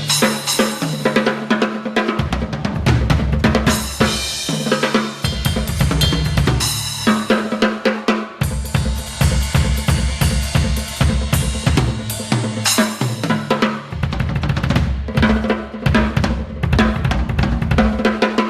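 Crush acoustic drum kit played in a fast, busy groove: bass drum, snare and cymbals, broken several times by tom fills that step down in pitch.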